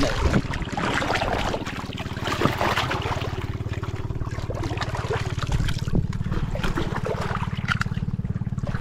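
Shallow seawater lapping and trickling around mangrove roots, with irregular splashes.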